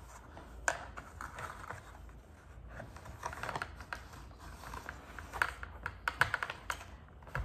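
Light, irregular clicks and rustles of lace lingerie being handled and fitted onto a mannequin torso, with the ticks bunching up around three seconds in and again around five to six seconds.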